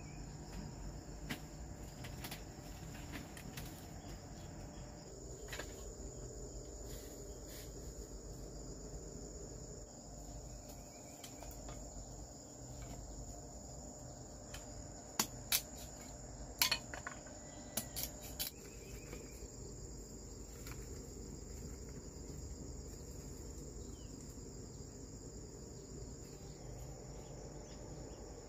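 Insects chirring steadily at a high pitch, with a short cluster of sharp knocks a little past the middle.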